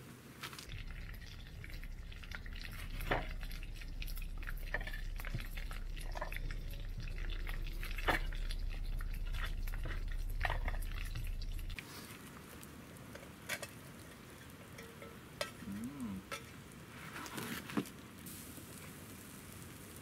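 A frypan of curry simmering and sizzling over a wood fire, with scattered sharp clicks and taps from a knife cutting sausages and chunks going into the pan. A low rumble runs under the first twelve seconds or so, then stops suddenly.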